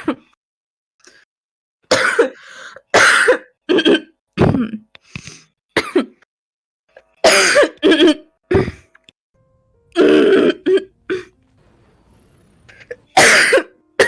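A young woman coughing and clearing her throat over and over, about a dozen short, deep coughs and hacks in uneven bursts with pauses between them. It is a barking cough that the uploader puts down to smoking.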